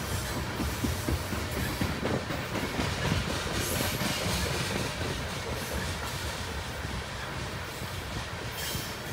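Freight train's coal hopper cars rolling past: a steady rumble of steel wheels on the rails, with short uneven knocks from the wheels.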